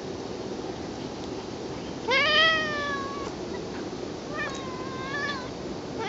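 Ragdoll cat meowing while held: two long, drawn-out meows about two seconds apart, the first rising then falling in pitch, the second wavering, with another meow beginning at the very end.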